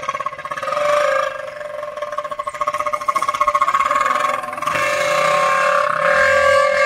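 Two plastic toy trumpets stuck into a Hero motorcycle's exhaust silencer, blown by the running engine's exhaust into a continuous horn tone that pulses rapidly with the exhaust beats. The tone gets louder, with more engine rumble underneath, about five seconds in as the bike rides off.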